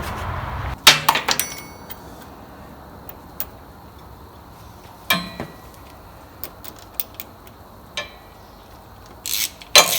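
Metal tools clinking on battery terminal hardware as the negative cable is fastened. A loud clink comes about a second in with a short metallic ring, then scattered light clicks, and a quick run of clicks near the end.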